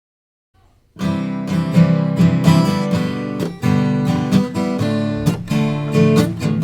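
Acoustic guitar strummed in a steady rhythm, starting about a second in after silence: the instrumental intro of a song.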